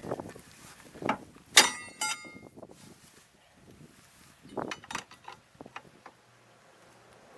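Metal tools clinking and knocking on metal, with two sharp ringing clangs about a second and a half in and another cluster of clanks near the five-second mark.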